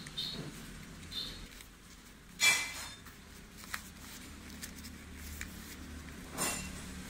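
Sheet of origami paper being handled and creased by hand, with a few short sharp rustles or clicks. The loudest comes about two and a half seconds in and another near the end, over a low steady hum.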